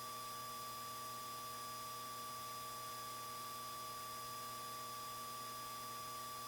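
Steady hiss with a faint, even electronic whine and hum: the noise floor of a Cessna 172's intercom and radio audio feed between radio transmissions.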